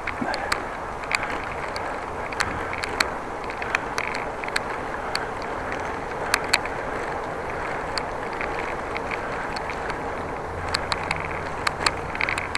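Bicycle being ridden along a road: a steady rush of tyre and wind noise, with scattered sharp clicks and rattles at irregular intervals.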